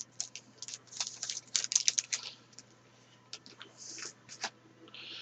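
Trading cards being handled and flipped through: quick light clicks and short rustles, in clusters, with a longer rustle near the end.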